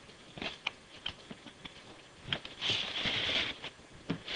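Cardboard graphics-card box being handled on a wooden floor: light taps and knocks, then a scraping slide of cardboard against cardboard about two and a half seconds in, lasting around a second.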